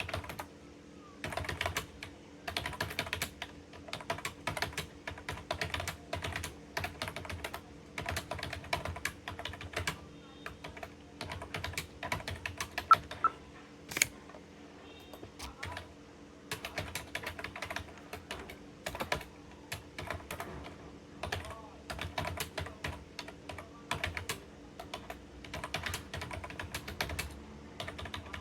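Fast typing on a computer keyboard: rapid runs of key clicks broken by short pauses, over a faint steady hum. One keystroke about 13 seconds in is louder than the rest.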